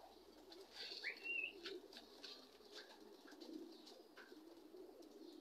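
Faint cooing of racing pigeons, with a short rising chirp about a second in.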